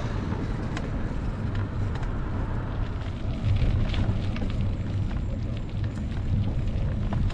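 Steady wind noise on the microphone of a bicycle being ridden along a road: a low rumble with a fainter hiss above, swelling and easing slightly.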